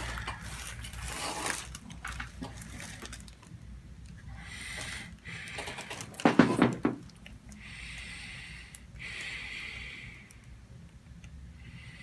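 A man breathing slowly and deliberately in and out through his nose, several separate hissing breaths a second or two long, with a brief louder sound about six seconds in.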